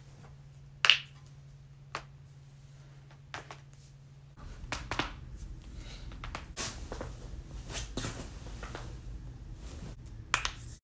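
Joints cracking: one sharp, loud neck crack about a second in and two smaller pops after it, then a run of small pops and clicks, and a loud double crack of the knuckles near the end.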